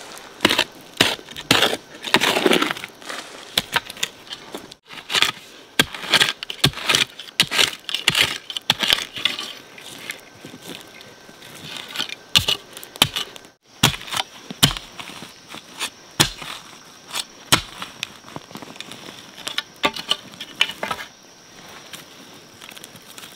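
Irregular crunching and snapping, several sharp cracks a second, busiest in the first half and thinning out later. A faint steady high-pitched hum comes in partway through.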